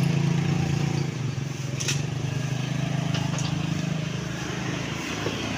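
A vehicle engine idling steadily, with two light clicks about two and three and a half seconds in.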